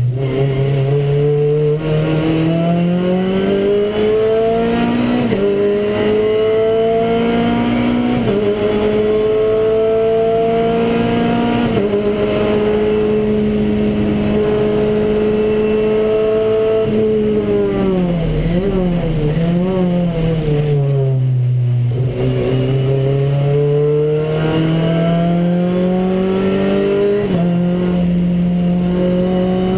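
Renault Clio Cup race car's four-cylinder engine heard from inside the cockpit, pulling hard and climbing in pitch through several upshifts. About two-thirds of the way in it drops in pitch under braking with quick throttle blips on the downshifts, then pulls up through the gears again.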